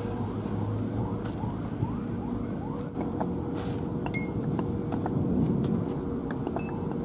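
A steady machine hum with a constant whine, plus faint rising chirps repeating about twice a second and a few light clicks.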